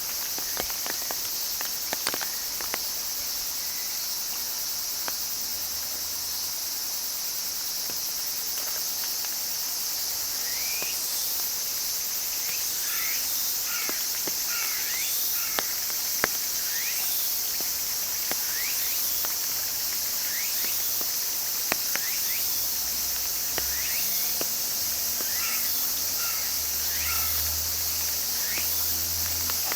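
Cicadas singing in a steady, continuous high-pitched buzz. About a third of the way in, short rising chirps begin repeating over it for a while, and scattered faint clicks are heard throughout.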